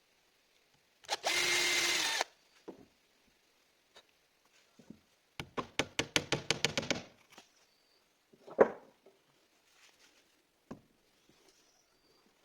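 A power drill runs for about a second, then comes a rapid run of sharp clicks lasting about a second and a half, followed by a couple of single knocks on wood.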